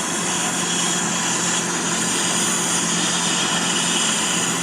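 Brazing torch flame hissing steadily while it heats a brazed refrigerant-line joint on a heat pump compressor to melt it loose. A faint steady low hum runs underneath.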